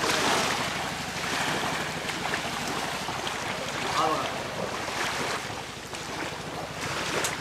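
Wind buffeting the microphone over the rush of surf on a beach, with faint voices about four seconds in.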